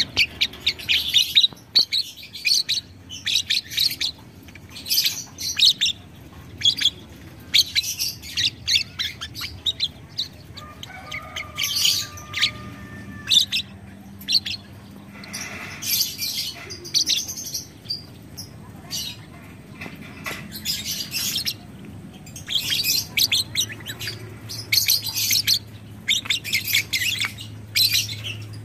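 Caged lovebird giving its 'ngekek' chatter: rapid, shrill strings of chirps in bursts of a second or two, repeated again and again with short pauses between them.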